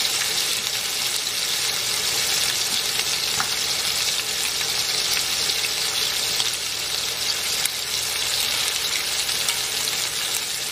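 Chicken thighs searing in fat in a cast iron skillet, a steady sizzle, with a couple of light clicks partway through.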